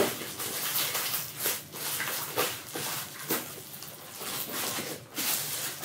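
Thin plastic packaging bag rustling and crinkling in irregular crackles as it is handled and pulled off a cardboard box.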